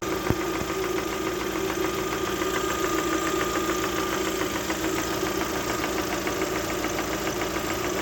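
Lada Vesta 1.6-litre four-cylinder engine idling steadily with a fast, even ticking knock from the top end. It is the sign of a factory defect in the engine, which the owner puts down to the cylinder head and says oil will not cure.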